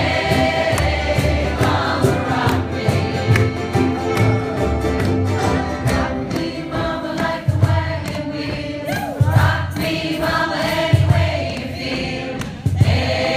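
Ukulele ensemble strumming a steady rhythm while the group sings together in chorus, played live.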